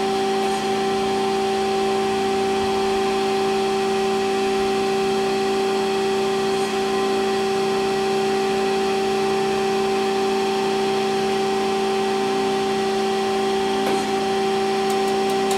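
Chevalier FSG-1020AD surface grinder running: a steady, even hum from the wheel spindle and hydraulic system, with a few light clicks near the end.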